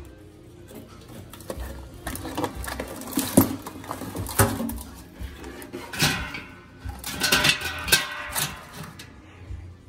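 Live blue crabs being loaded into a stainless steel steamer pot and its perforated basket: an irregular run of clattering knocks and scrapes of shells and claws against metal, loudest about three and a half seconds in.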